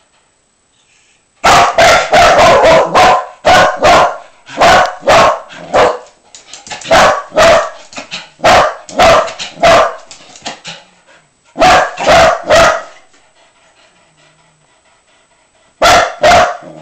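A dog barking loudly in quick runs of sharp barks, about two a second, with short pauses between runs, then two more barks near the end.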